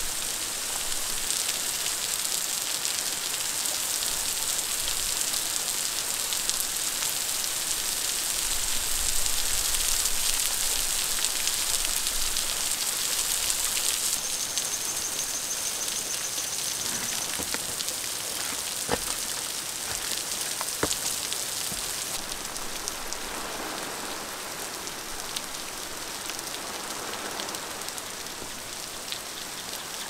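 Steady rain falling on rocks and water: a dense, even hiss, with a few sharp clicks around the middle.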